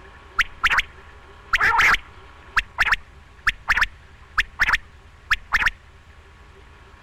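Quail calling: a series of sharp two-note calls, a short note followed by a slightly longer one, repeating about once a second and stopping about six seconds in.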